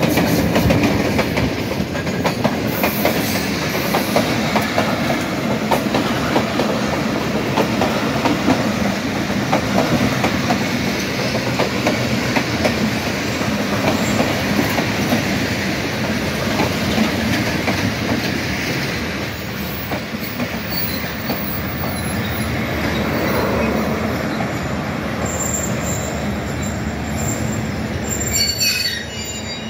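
Diesel-hauled passenger train rolling past at close range, its locomotive and then its coaches, with the wheels clattering steadily over the rail joints. Near the end, a few high wheel squeals as the train slows into the station.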